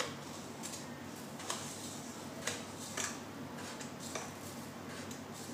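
Four or so faint light clicks and taps as sugar is shaken from a small container into a blender jar, over a low steady hum.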